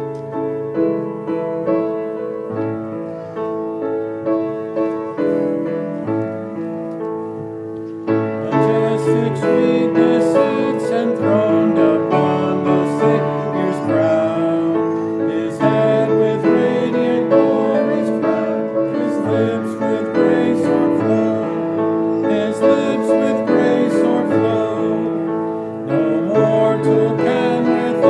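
Piano playing a hymn introduction, then, about eight seconds in, voices join and the hymn is sung to the piano accompaniment.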